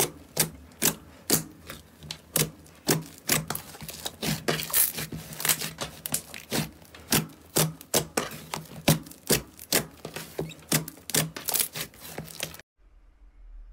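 Thick, glossy black slime being pressed and poked by fingers, giving sharp wet pops and clicks of trapped air, about two to three a second. The popping stops abruptly about a second before the end.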